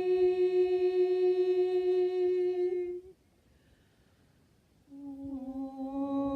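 Voices toning a long, steady held note that stops about three seconds in. After a short silence, several voices begin a new, lower held note together.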